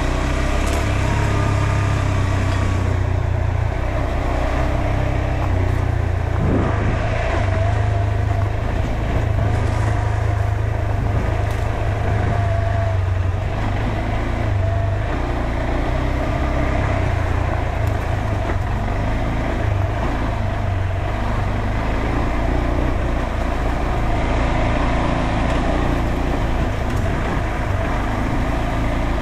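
KTM 390 Adventure's single-cylinder engine running steadily under light throttle while the bike rides a dirt trail, its pitch wavering a little, with tyre and chassis noise over it.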